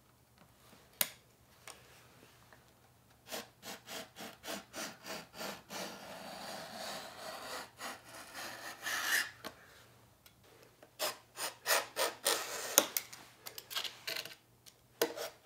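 Utility knife scoring a sheet of Formica laminate along a steel square: a run of short scraping strokes, about three a second, louder from about eleven seconds in. A single click comes about a second in.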